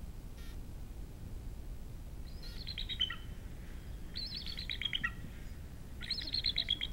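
Recorded bald eagle calls played from a small handheld player: three short runs of rapid, high chirping notes, each falling slightly in pitch, about two seconds apart.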